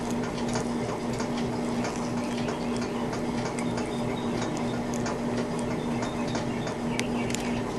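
Faint, irregular small clicks and rubbing as fingers press and stretch a rubber earbud cover over an earbud, over a steady low hum.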